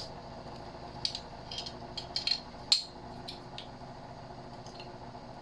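Light clicks, knocks and rattles of a fuse board being worked by hand to pull a brass piece off it, the loudest knock about halfway through, over a steady low hum.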